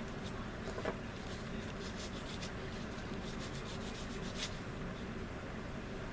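Light scraping and rubbing on small plastic model-kit parts as they are cleaned up: a run of faint scratchy strokes with a few small clicks, over a steady low background hum.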